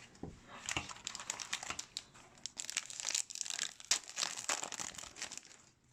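A trading-card pack's foil wrapper being torn open and crinkled by hand, a dense run of irregular crackles that stops near the end.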